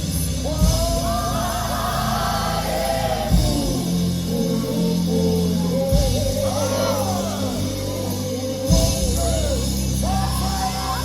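Gospel music: singing voices over a steady bass line with a drum hit every few seconds.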